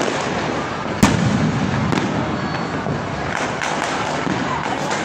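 Fireworks going off: a continuous crackle of many distant bursts, with one sharp, close bang about a second in and a smaller one about a second later.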